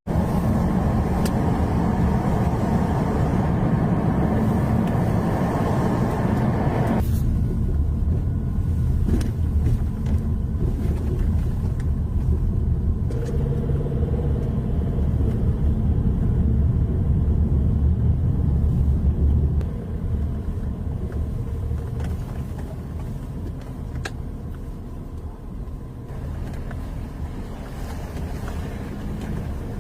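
Steady low rumble of a car in motion, road and engine noise. A brighter hiss on top stops abruptly about seven seconds in, and the rumble grows quieter in the last third.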